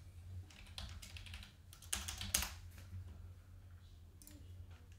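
Typing on a computer keyboard: irregular keystroke clicks, with a couple of louder ones about two seconds in.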